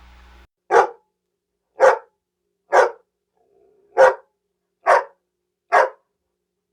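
Dog barking: six single barks, spaced about a second apart.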